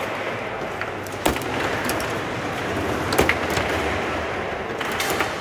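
Table football being played: the ball is struck by the players on the rods, giving two sharp clacks about a second and three seconds in and a few lighter taps.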